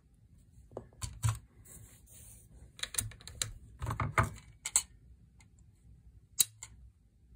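Scattered light metal clicks and taps from a hex key and a trigger pull gauge being worked on a Timney trigger fitted to a Remington 783 action during pull-weight adjustment. One sharp click near the end, as the gauge pulls the trigger until it breaks.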